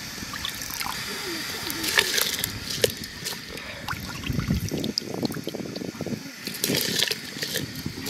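Hands sloshing and rubbing rice grains in a steel bowl of water, with water trickling back from lifted handfuls. Near the end, wet rice is dropped into a pot of steaming water.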